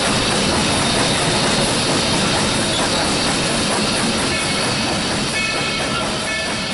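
Southern Pine Lumber Co. No. 28, a 2-6-0 steam locomotive, running along the track, heard from the cab window as a steady rush of running and wheel-on-rail noise. A few faint high tones come in over the last couple of seconds.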